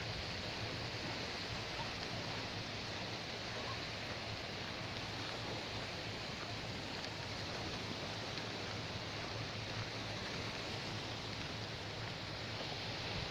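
Faint, steady beach ambience: gentle surf washing on the shore and wind on the microphone, an even hiss with no distinct events.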